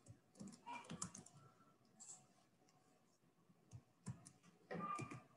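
Faint clicking of computer keyboard keys in short clusters.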